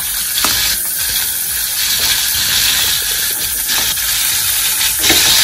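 Beef steak searing in hot oil in a frying pan: a steady sizzle, with a few light clicks.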